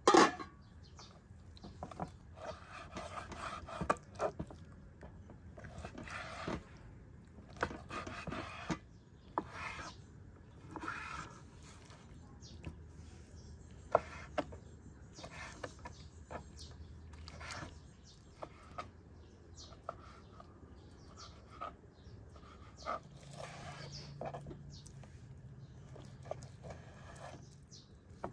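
Chef's knife slicing raw chicken breast on a wooden cutting board, with irregular knocks of the blade hitting the board and short scrapes and rustles as the meat is cut and pushed aside. A metal lid clanks once, loudly, at the very start.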